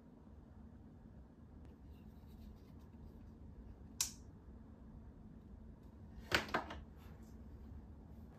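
Faint steady room hum with a sharp click about four seconds in and a louder double click a little past six seconds, the switch of a candle-warmer lamp being turned on.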